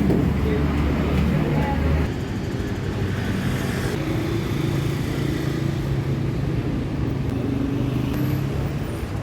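Steady low machine hum with a continuous drone of mechanical noise.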